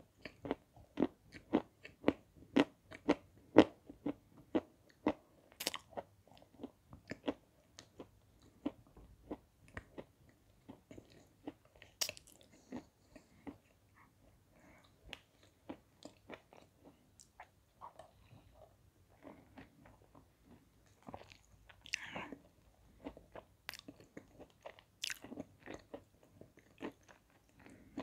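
Close-miked chewing of a chunk of white edible chalk coated in thinned red clay. Crisp crunches come about two a second for the first several seconds, then thin out to sparser, softer chewing and mouth sounds.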